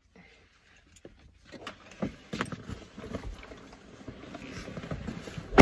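Rustling and bumping of a hiking backpack with a strapped-on water bottle being lifted and stowed inside a car, with a few short knocks.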